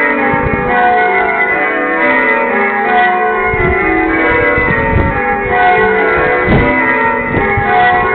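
Church bells ringing, one struck tone after another, the tones overlapping and ringing on.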